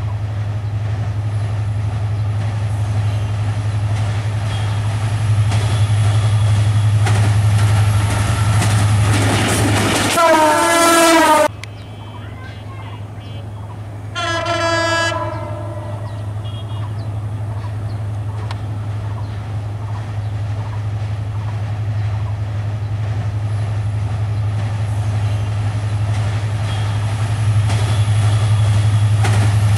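EMD GT42 diesel-electric locomotive approaching at speed with a steady low engine drone. Its air horn sounds twice: a long blast about ten seconds in that cuts off abruptly, then a shorter one a few seconds later. The engine and wheel noise build near the end as the train draws close.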